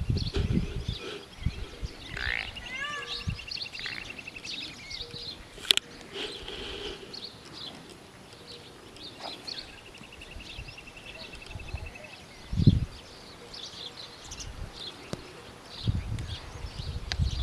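Small birds chirping throughout, with a rapid trill held for a couple of seconds, twice. A few short low rumbles: near the start, about two-thirds through, and near the end.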